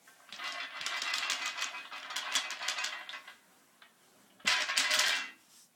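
Harsh, rattly coughing: one raspy fit lasting about three seconds, then a single shorter cough about a second later.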